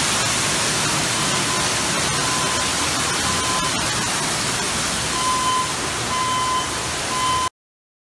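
Water pouring and splashing from the ceiling onto a flooded floor, a loud steady rush, from pipes burst in a hard freeze. A single-pitch electronic beep sounds on and off through it. Everything cuts off suddenly near the end.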